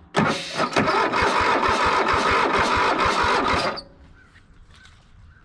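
The electric starter cranks the 23 hp Kohler V-twin of a zero-turn mower in a rhythmic churn. The engine has not caught, and the cranking stops abruptly a little under four seconds in.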